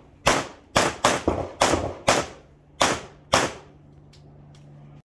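Rapid pistol fire from a Tanfoglio handgun during an IPSC stage: seven sharp shots in quick pairs, about half a second apart or less, ending about three and a half seconds in.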